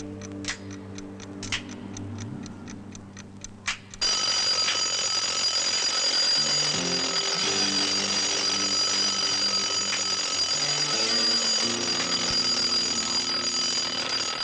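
Alarm clock ticking about four times a second, then about four seconds in its bell starts ringing loudly and keeps on ringing steadily, with a few low music notes beneath, heard through a 16 mm film's optical soundtrack.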